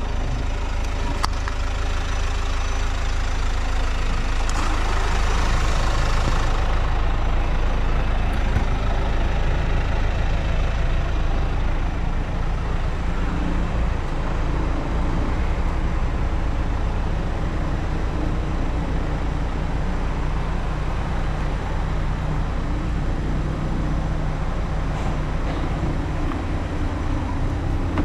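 An engine idling steadily, a constant low rumble with a fixed hum.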